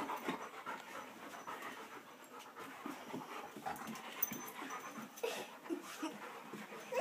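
A dog panting softly.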